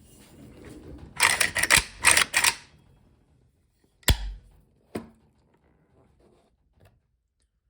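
Metal clicks and clatter from the action of a PSAK-47 AK-pattern rifle being handled while it is checked clear, then a single sharp clack with a low thump about four seconds in, typical of the bolt carrier slamming forward, and one lighter click about a second later.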